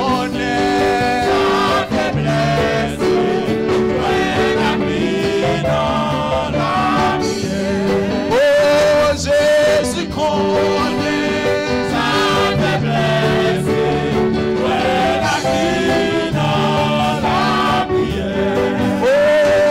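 Live gospel worship music: a man singing a hymn into a microphone, with a congregation singing along over instrumental accompaniment.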